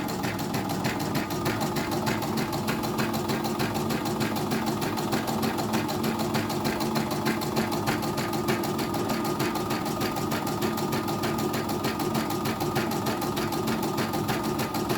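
Hakatori computerized embroidery machine stitching, its needle mechanism making a rapid, even clatter over a steady motor hum.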